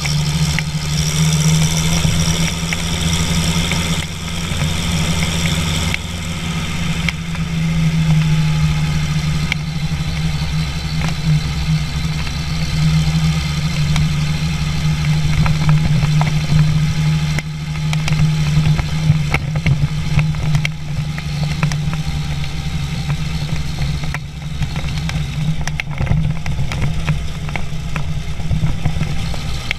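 International Harvester 1055 XL tractor's diesel engine running steadily as the tractor drives along, a loud even drone with scattered short clicks and rattles through the middle.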